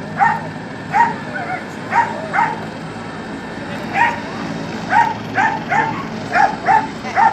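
A dog barking repeatedly: about a dozen short, sharp barks at uneven intervals, with a pause of about a second and a half partway through, over a low murmur of voices.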